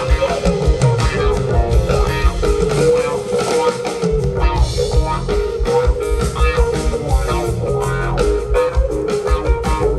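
Live rock band playing an instrumental blues-rock passage: electric guitar over bass guitar and drums, with steady drum strokes throughout.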